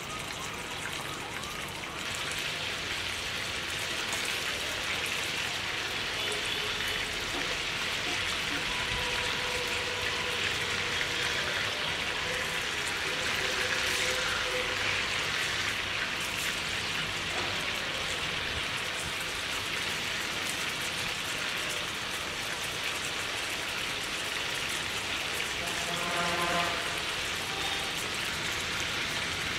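Food sizzling in hot oil in a pan: a steady frying hiss that gets louder about two seconds in, as if more was added to the pan.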